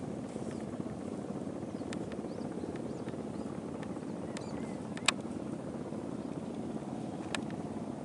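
A steady low rumble, with a sharp click about five seconds in and a softer one near the end.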